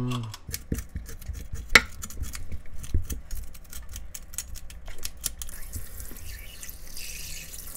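Kitchen knife scraping the scales off a red sea bream on a wooden cutting board: a quick run of scratchy clicks, with one sharper knock about two seconds in. About five and a half seconds in, tap water starts running over the fish.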